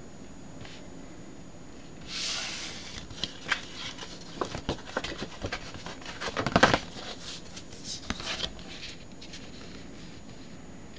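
Stiff card of a fold-out scratch lottery ticket being handled and opened: a short sliding hiss, then a run of crackles and taps, loudest about halfway through.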